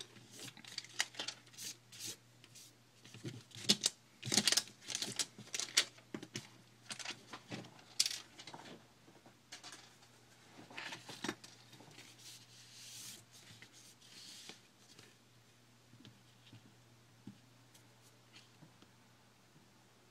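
Small clicks, taps and rustles of hands handling things on a workbench, scattered and irregular, growing sparse after about twelve seconds.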